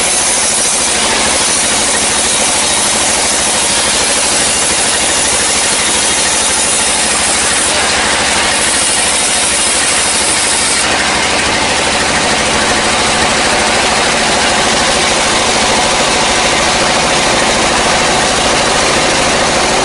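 Sawmill band saw cutting lengthwise through a dry, long-felled log: a steady, loud noise of the blade running through the wood, with the mill's motor running underneath.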